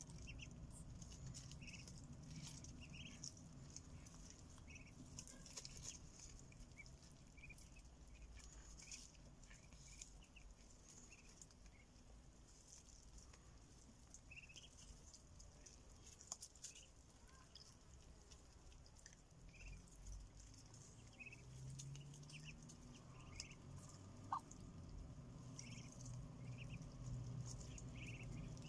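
Ducklings peeping faintly now and then: short, high peeps scattered a second or two apart.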